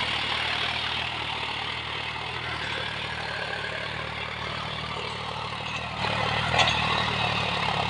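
John Deere 5105's three-cylinder diesel engine running steadily at about 1600 RPM under the load of a cultivator, holding its speed without bogging down. It grows louder about six seconds in, with a short knock soon after.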